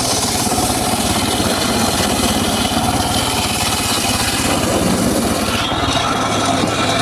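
Homemade circular saw cutting teak wood over a steady machine drone, the cutting noise easing off about three-quarters of the way through while the saw keeps running.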